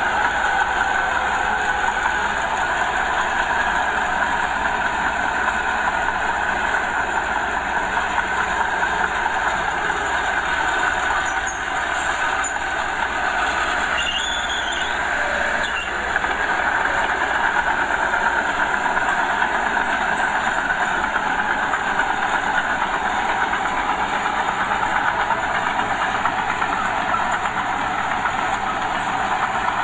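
Small Komatsu bulldozer working: its diesel engine running steadily under load, with the clank and rattle of its steel tracks.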